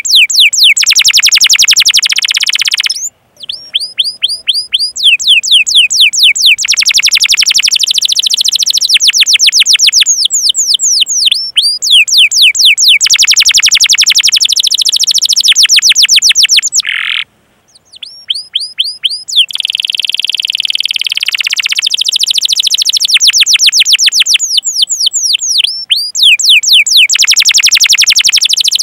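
Domestic canary singing: runs of quick falling 'cuit cuit' chirps alternating with fast rolling trills. The song breaks off briefly about three seconds in and again about seventeen seconds in.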